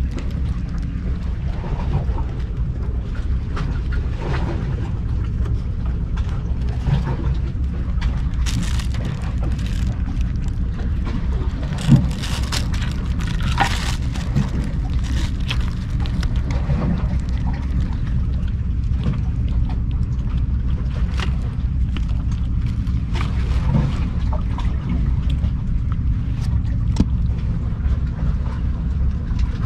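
Kittens chewing and lapping wet kitten food from a bowl right next to the microphone: scattered small wet clicks over a steady low rumble.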